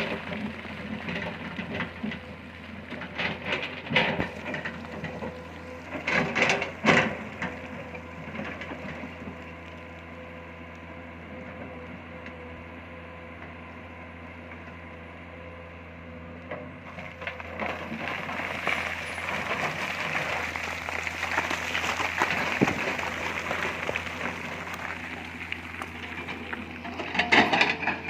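Excavator's diesel engine running steadily, with several sharp metallic clanks and rattles. A louder, hissing stretch comes in the second half.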